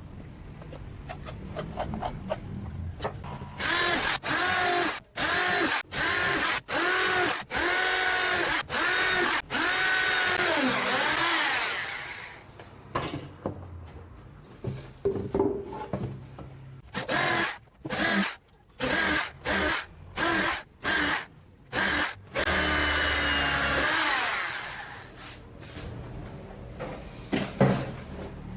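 Electric drill run in a series of short trigger pulls, its pitch rising as it speeds up and falling as it slows, with two longer runs of about two seconds.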